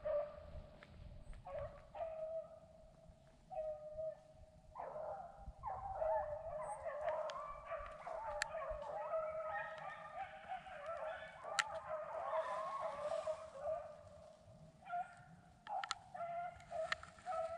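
Pack of beagles baying faintly while running a rabbit, the sign the dogs are on its scent. Scattered cries at first, then many voices overlapping from about five seconds in, thinning out near the end.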